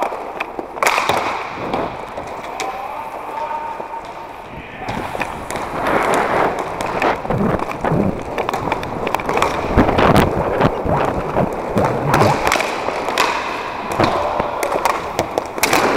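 Inline hockey skate wheels rolling over plastic sport-court floor tiles, with many sharp clicks and knocks throughout, busier and louder from about a third of the way in.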